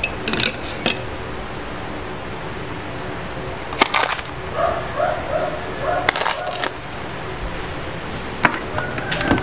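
Scattered clicks and knocks of kitchen utensils being handled, starting with wooden spoons taken from a ceramic crock, over steady room noise. A short run of four faint tones comes about halfway through.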